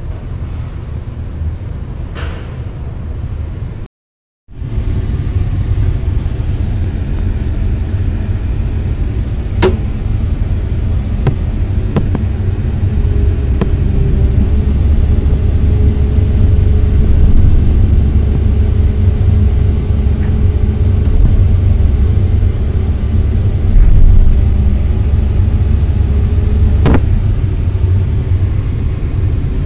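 SANY hydraulic excavator's diesel engine running steadily, heard from the operator's cab while the boom and bucket are worked, growing louder from about halfway through. A steady tone rides over it for a stretch, and a few sharp clicks are heard; the sound cuts out briefly about four seconds in.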